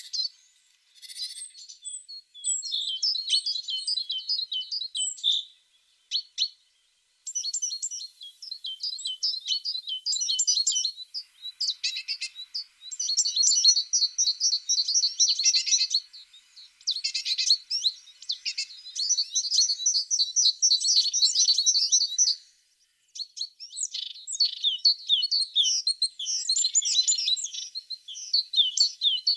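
A tit singing: long runs of fast, high trills and chirps, broken by short pauses about a second in, around six to seven seconds in, and briefly around 16 and 23 seconds in.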